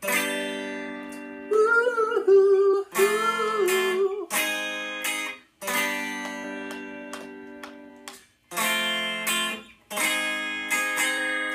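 Electric guitar playing a chord progression: F, then G-sharp, then G, struck about eight times. Each chord is left to ring and fade before the next.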